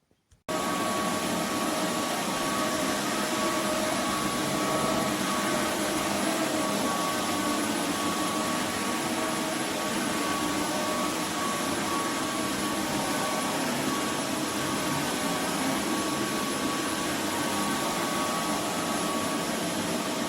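Roborock F25 cordless wet-dry vacuum switching on about half a second in, then running steadily: a constant rushing whir with a steady whine over it.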